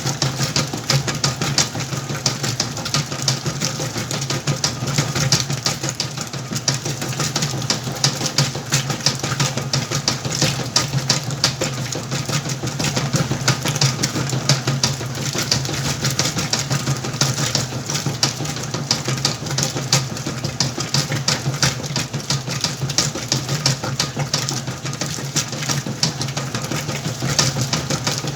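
Whirlpool washing machine running a wash cycle with a load of sacks: a steady motor hum under a continuous, fast, irregular clicking rattle.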